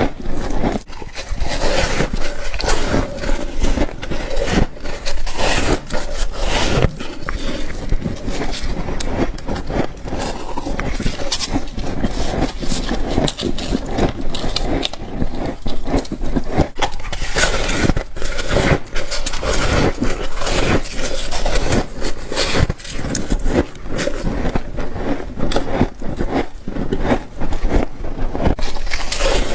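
Someone biting and chewing freezer frost close to the microphone: dense, continuous crunching and crackling with no pause.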